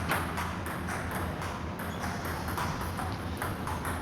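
Table tennis ball clicking off paddles and the table during a rally, a quick, uneven run of sharp ticks.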